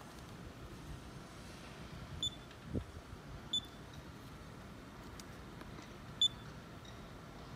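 Three short, high electronic beeps spaced a second or more apart, typical of button presses on the welder's control panel, with a soft thud after the first.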